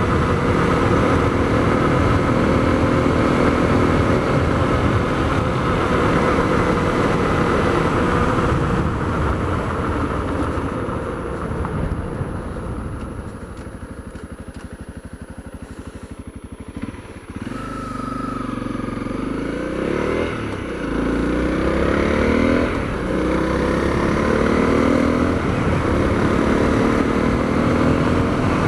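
Honda CRF250L's single-cylinder four-stroke engine, fitted with an FMF Q4 HEX slip-on exhaust, running while the bike is ridden. Revs drop and it quietens for several seconds around the middle, then picks up again with the revs rising through the gears.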